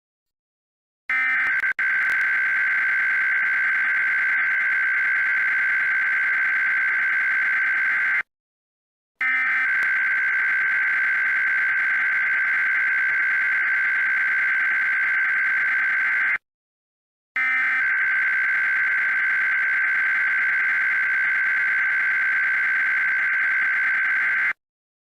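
Emergency Alert System SAME header: three bursts of buzzing digital data tones, each about seven seconds long, with about a second of silence between them. This is the coded data burst that opens a new alert.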